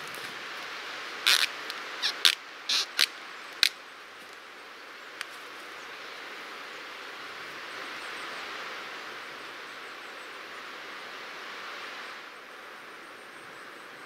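Thin cord being pulled taut around a pine trunk: about six short, sharp rasps of cord on bark in the first four seconds. Under them, a steady hiss of wind through the pine trees.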